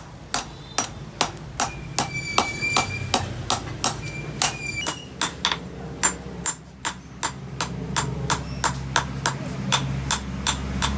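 Hammer forging a steel knife blade: a steady run of blows, about three a second, some leaving a short high metallic ring.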